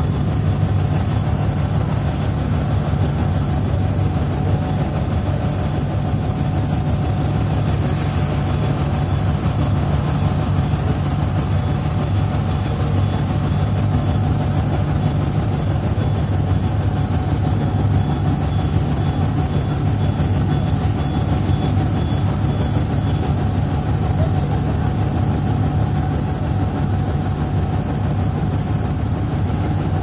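A boat's engine running steadily with a constant low drone, under an even rushing hiss.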